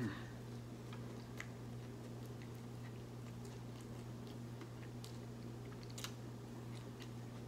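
A man chewing a mouthful of fried chicken sandwich with his mouth closed, with scattered soft mouth clicks. A steady low electrical hum runs underneath.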